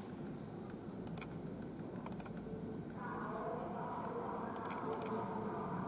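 Sharp clicks of a computer keyboard or mouse, a few at a time and mostly in quick pairs. A steady background hum sets in about three seconds in.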